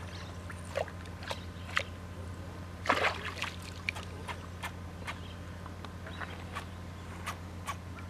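Short splashes and sloshes of water, scattered irregularly, with the loudest cluster about three seconds in, over a steady low hum.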